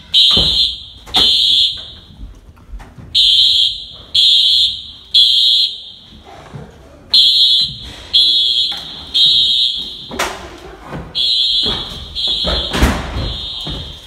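Dormitory fire alarm sounding the temporal-three evacuation signal: groups of three loud, high electronic beeps, each followed by a pause, repeating. A couple of sharp thumps come late, the loudest near the end.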